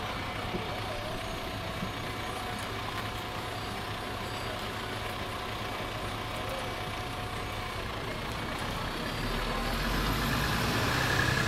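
Mercedes-Benz Citaro C2 hybrid city bus standing with its engine idling, heard from inside the passenger cabin. A steady low hum carries a faint steady whine, and the low running sound grows louder about nine seconds in.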